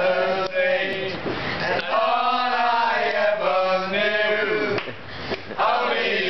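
Men singing together loudly and unaccompanied, in a rowdy chant-like way, holding long notes. The singing drops off briefly about five seconds in, then picks up again.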